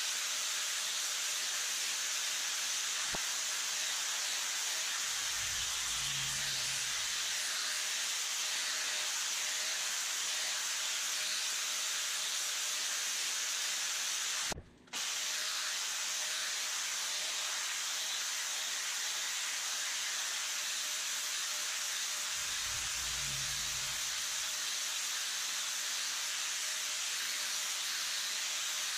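Handheld angle grinder running steadily against the steel front axle, grinding and sanding it toward bare metal: an even hiss with a steady motor whine under it. The sound cuts out briefly about halfway through.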